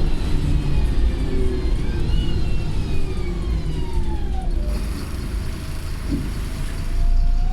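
Wright Pulsar single-decker bus heard from on board: engine rumble with a high gearbox and differential whine that glides in pitch, falling as the bus eases off around the middle, then rising again as it pulls away.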